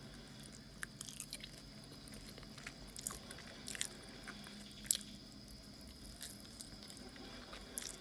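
A person chewing and biting into chicken wings: wet, squishy chewing with scattered sharp clicks and crunches.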